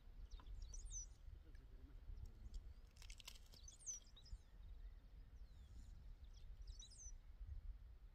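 Faint outdoor quiet with three short, high, curling bird chirps, about three seconds apart, over a steady low rumble. A few faint clicks come about three seconds in.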